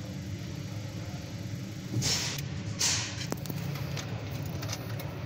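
Steady low mechanical hum, like an engine idling, broken by two short hissing rushes about two and three seconds in, followed by a few faint clicks.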